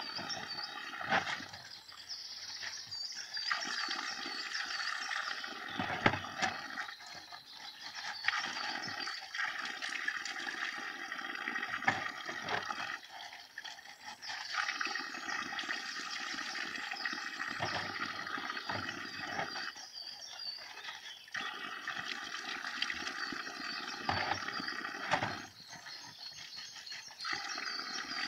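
Spring water from a fountain spout pouring into plastic bottles, the rushing breaking off for a moment several times as bottles are swapped, with knocks of the plastic bottles being handled.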